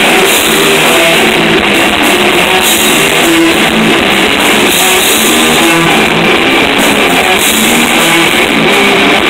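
Death metal band playing live: heavy distorted electric guitars over a drum kit, with cymbals coming and going. The sound is loud and dense throughout.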